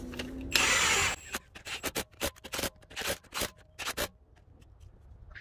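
Milwaukee M12 Fuel cordless impact wrench tightening the lug nuts of a car wheel. One loud burst of hammering comes about half a second in, then a run of short, sharp bursts of impacts that stops about four seconds in.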